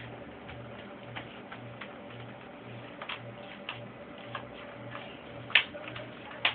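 Plastic snap-fit clips of a Samsung N120 netbook's case clicking into place as the panel is pressed down around its edge: a run of light clicks, with two louder snaps near the end.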